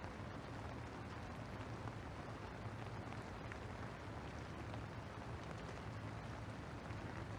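Steady outdoor ambience of light rain falling on wet paving, with a low steady hum underneath.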